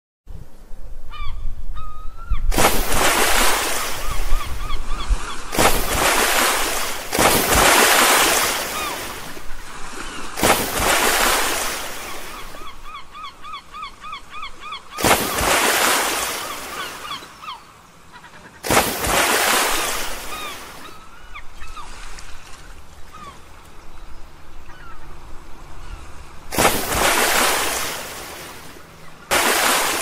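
Water splashing as stones drop into it, about eight separate splashes, each starting sharply and fading over a second or two. Between the splashes, birds call in rapid strings of short cries, most clearly near the start and about halfway through.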